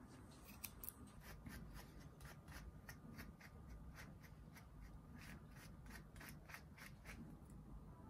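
Small grooming scissors snipping a Bichon Frise's curly fur, faint, quick repeated snips at about three a second.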